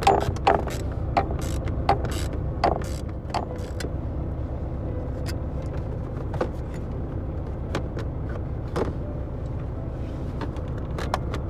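Sharp clicks and knocks of a socket ratchet and a plastic speaker cover being worked loose on a truck dashboard, thickest in the first few seconds and scattered after. Underneath runs the steady low rumble of an idling engine.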